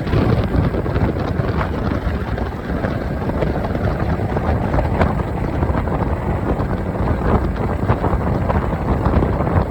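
Mercury 115 outboard motor running under way on a boat, with heavy wind buffeting on the microphone.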